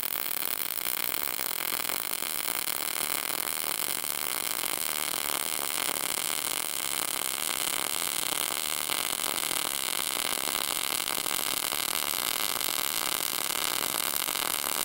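Short-circuit MIG welding arc running a bead on clean steel with 0.030 ER70S6 wire, 75% argon/25% CO2, at 17.5 volts and 200 inches a minute wire feed. It makes a steady crackling, buzzing sound like frying bacon, the sign of a stable short-circuit transfer.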